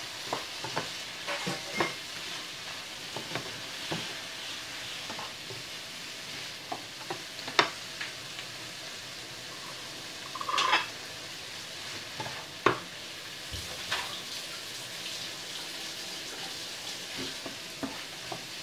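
Shrimp and vegetables sizzling in a frying pan while being stirred with a spatula, which scrapes and taps against the pan now and then, with a few sharp clinks.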